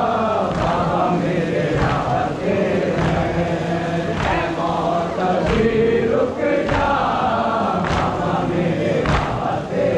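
A crowd of men chanting a Muharram lament (nauha) in unison, with rhythmic sharp slaps of chest-beating (matam) about once a second.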